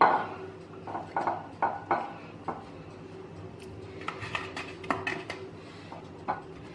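Soft knocks and light clinks of eggplant slices being taken from an oiled wooden bowl and laid into ceramic baking dishes. A faint steady hum runs underneath.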